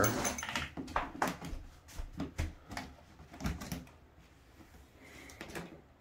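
Plastic clicks and knocks as a shop-vac hose end is pushed and worked onto a dryer vent opening in the wall, busiest in the first few seconds.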